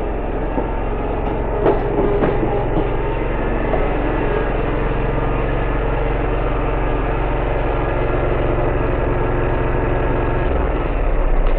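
Walker GHS MT ride-on mower's engine running steadily, its note changing shortly before the end.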